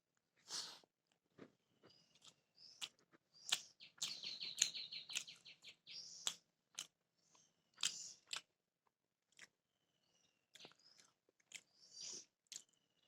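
Close chewing and lip-smacking of a mouthful of beef biryani, in irregular short clicks with a quick rattling run about four seconds in. Faint bird chirps can be heard in the background.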